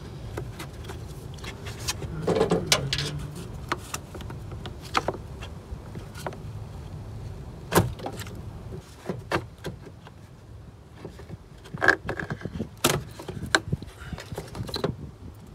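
A BMW 1/3 Series plastic air filter box, stuck in place, being wrenched loose and pulled out by hand: a run of plastic clicks and rattles with several sharp knocks, over a low steady rumble.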